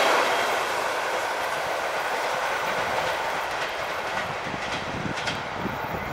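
ER1 electric multiple unit train running away down the line after passing, its wheel and running noise fading steadily. There are a few faint clicks near the end.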